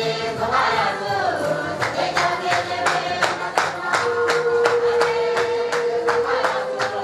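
A group of voices singing together in long held notes, joined about two seconds in by a steady beat of sharp hand claps, about three a second.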